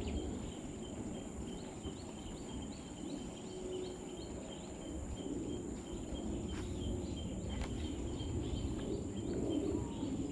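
Insects chirping in a steady rhythm, about two or three chirps a second, over a steady high whine and a low noisy background.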